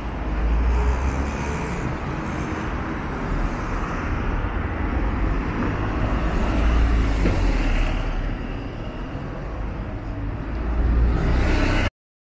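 Street traffic: cars and city buses running close by, with a heavy low engine rumble under a steady roadway hiss. It cuts off suddenly near the end.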